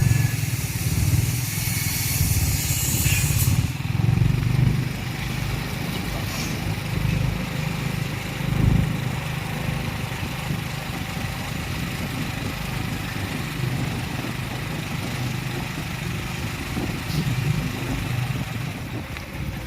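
A vehicle engine running steadily on the move, a low hum, with a high hiss over the first few seconds that cuts off suddenly.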